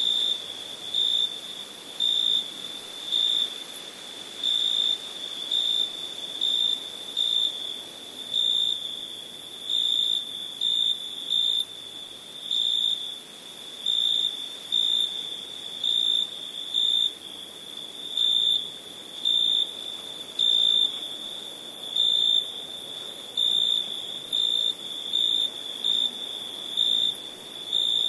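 Crickets chirping in a steady high trill, swelling into louder chirps about once a second, over a faint hiss.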